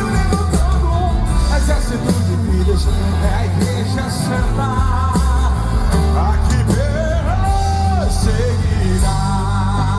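Live gospel band playing loud, steady music with heavy bass, a pitched melody line bending up and down in the second half.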